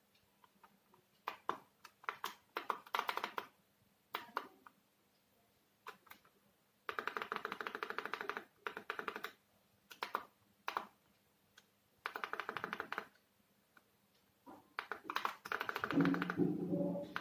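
Synthesizer front-panel controls being worked in quick runs of rapid clicks, several times with pauses in between, as the keyboard split point is set.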